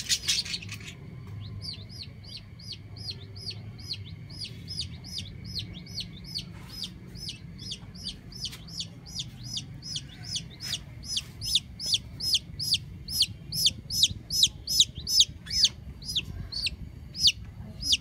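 A chick peeping over and over, each peep a short high falling note, about two or three a second, getting louder toward the end.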